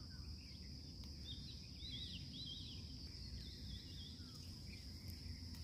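Faint rural ambience: a steady high insect drone, with a small bird giving a quick run of short chirps between about one and three seconds in, over a low rumble.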